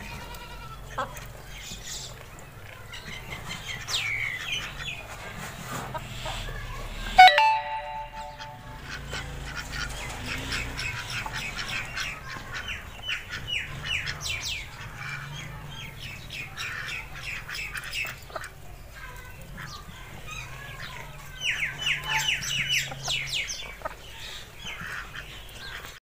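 A flock of domestic chickens and ducks calling: a mix of clucks, squawks and quacks, with quick runs of rapidly repeated calls midway and again near the end. One sharp, loud sound stands out about seven seconds in.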